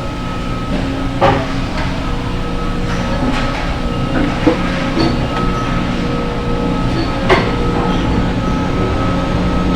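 Steady hum of running industrial machinery, with a few sharp metallic knocks scattered through it.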